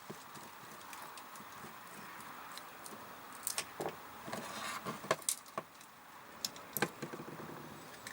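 Small metal parts and tools clicking and clinking, irregular and sharp, starting about three and a half seconds in, over a faint steady hiss.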